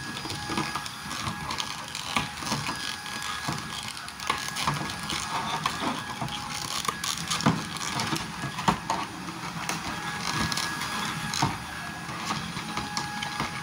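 Cardboard Funko Pop box and its plastic packaging being handled close to the microphone: irregular rustling, crinkling and small knocks.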